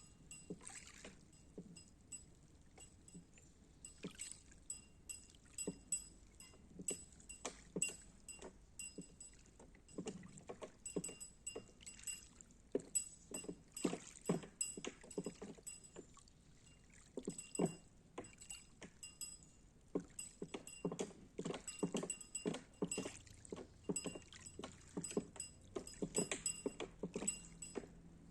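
Floating buoy rocking on lake water, giving irregular knocks and light metallic clinks that each ring briefly. The clinks come in clusters of several a second, with short lulls between.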